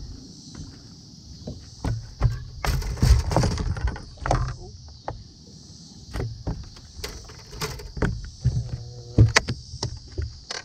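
Knocks and thumps on a bass boat's deck as an angler moves about and works the rod, over a low steady hum. A cluster of louder knocks comes about two to four seconds in and another about nine seconds in.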